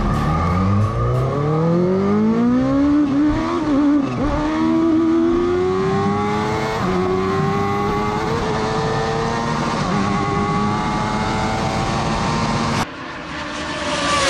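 Sport motorcycle engine accelerating hard at high speed, the revs climbing and dipping briefly at two gear changes, with a steady rush of noise over it. Near the end it cuts off suddenly to a quieter engine sound.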